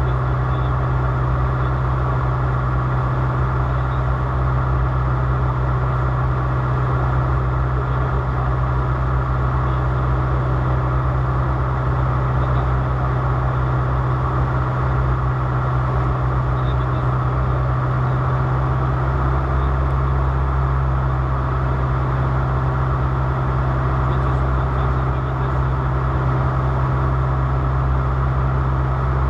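Aircraft engine drone, a loud, unchanging low hum that stays steady throughout.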